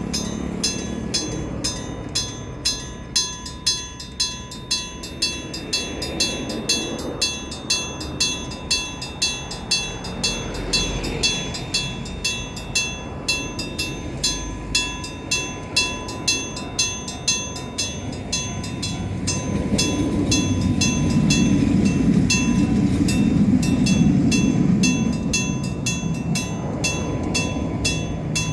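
Electric bell of a railway level crossing ringing in even, repeated strokes, about two a second. From about twenty seconds in, a low rumble of a train passing over the crossing swells under the bell, then fades.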